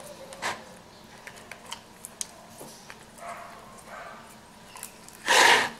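Clear slime being pressed and stretched in a plastic bowl: faint sticky clicks and squelches, with a short, loud rush of noise about five seconds in.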